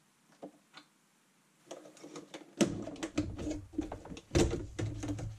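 Plastic clicks and rattling as the brush guard is unclipped and the brush roll lifted out of the underside of a Neato Botvac robot vacuum. Two faint clicks come first, then from about two seconds in a run of sharp knocks and clatter, two of them louder than the rest.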